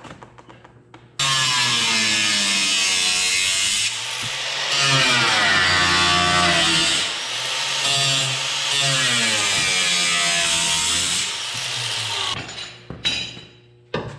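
Corded power tool running under load for about eleven seconds, starting suddenly a second in. Its motor pitch sags and recovers several times as it bites into the work, then it cuts off.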